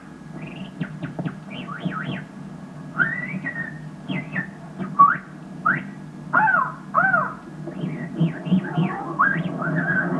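Whistled imitation of brown-headed nuthatch calls: a string of short, squeaky chirps, many sweeping up in pitch or arching, given in irregular bursts over a steady low hum.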